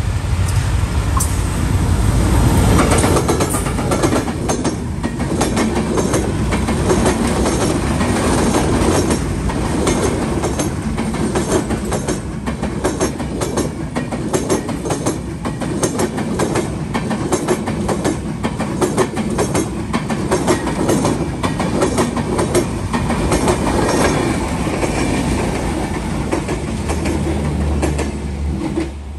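Passenger train passing close at speed. A diesel locomotive's heavy rumble comes first, then the LHB coaches' wheels give a long, even clickety-clack over the rail joints, which falls away near the end as the last coaches go by.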